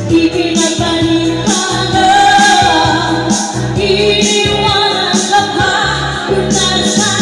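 A female voice singing karaoke live over a backing track with a steady beat and bass line.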